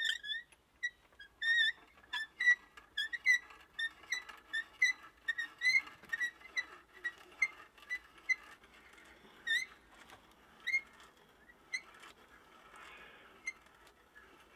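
Carpenter's hand brace being cranked to bore an auger bit into a log: a run of short, high squeaks, about two a second, over the rasp of the bit cutting wood. The squeaks thin out in the last few seconds.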